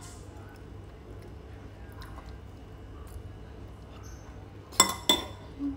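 A metal spoon clinks twice against a ceramic bowl near the end, two sharp ringing strikes close together, over faint small eating clicks.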